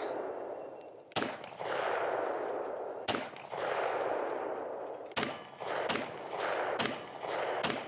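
9mm SIG P320 M17 pistol firing about six shots at an irregular pace, one to two seconds apart and quicker toward the end. Each report is followed by about a second of rolling echo.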